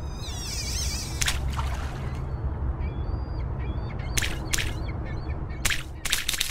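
Outro sound effects: a steady low rumble under bird calls, with warbling chirps in the first second and short whistled notes in the middle, and a few sharp clicks or plops, the clearest near the end.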